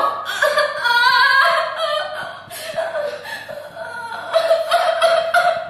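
A young woman sobbing and wailing loudly in distress, her cries breaking up and ending in a long drawn-out wail.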